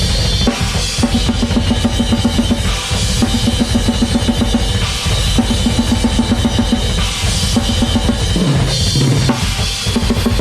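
Drum kit playing fast blast beats: rapid bass drum and snare under cymbals. A tom fill falling in pitch comes near the end.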